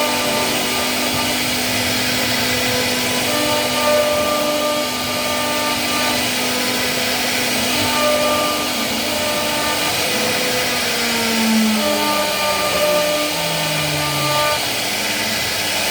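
CNC wood router running with a steady whir and several held tones; about two-thirds of the way in, a pitch falls a few times.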